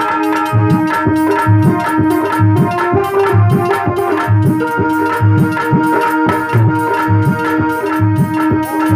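Devotional bhajan music with a steady hand-drum beat, about two strokes a second, under held keyboard notes.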